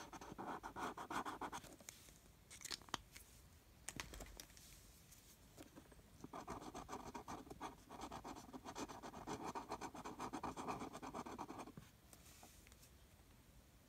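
Felt-tip marker scribbling on paper in quick back-and-forth colouring strokes, in two bouts: the first stops after about two seconds, the second runs from about six seconds to nearly twelve. A few light clicks fall in the pause between.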